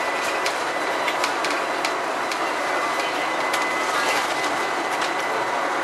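Bus cabin noise while the bus is under way, recorded near the engine at the back: steady engine and road noise with frequent small rattling clicks and a thin, steady high whine.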